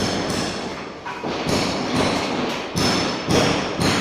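Repeated hammer blows, about two a second at an uneven pace.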